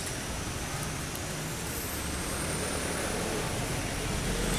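Steady rumble of a motor vehicle, getting louder toward the end.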